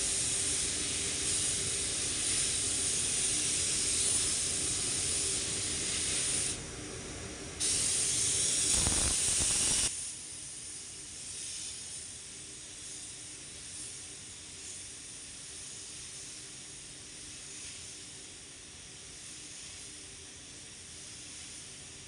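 Gravity-feed paint spray gun hissing as compressed air sprays paint, with a break of about a second some six and a half seconds in; from about ten seconds in the hiss is much fainter.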